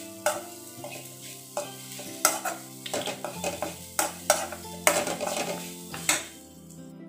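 Steel spoon scraping and knocking against a kadai, with a scrape every half second to a second, as ground coconut chutney is stirred and sautéed in a little oil, sizzling faintly.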